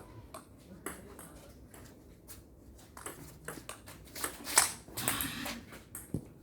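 Table tennis rally: a celluloid ball clicking on the table and paddles in an irregular series of sharp ticks. About four to five seconds in there is a louder, rougher burst of noise.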